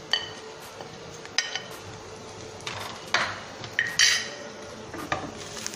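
A metal spoon clinking against a glass bowl and a metal pan while spices are tapped out into the pan. There are about six sharp, separate clinks, the first with a short glassy ring.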